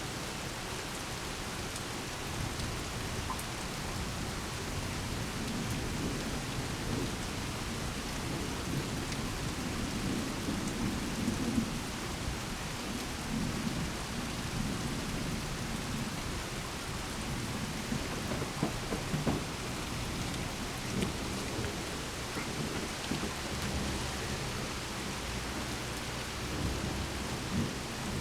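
Steady rain falling, with low rolling thunder that swells and fades underneath, strongest a little under halfway through.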